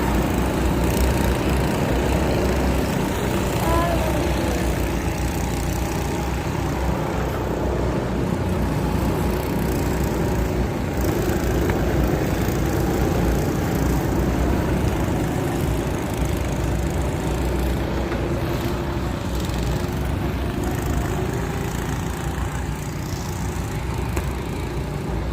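Go-kart engines running steadily as karts circle the track, with a faint background murmur of voices.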